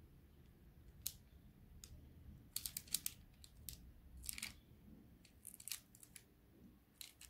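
Faint scratches and light clicks of a metal fork's tines drawing lines into soft, egg-glazed cookie dough on a parchment-lined baking tray. The strokes are short and uneven, with a quick cluster a little before three seconds in.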